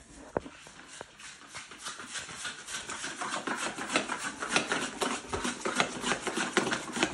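Drywall knife stirring and scraping quick-set joint compound in a metal mud pan: rapid repeated scraping strokes, several a second, that build up and grow louder from about halfway in, after a couple of knocks in the first second. The mud is being mixed a little thinner for a final skim coat.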